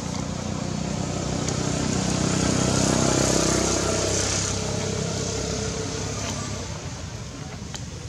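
A motor vehicle's engine passing by, growing louder to a peak about three seconds in and then fading away.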